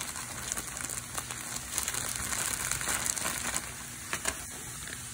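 Plastic bag of riced cauliflower crinkling as it is handled and emptied into a frying pan.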